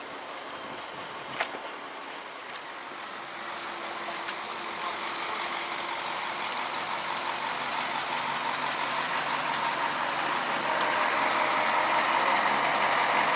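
Heavy truck engine running and growing steadily louder over the second half, with a couple of light clicks in the first few seconds.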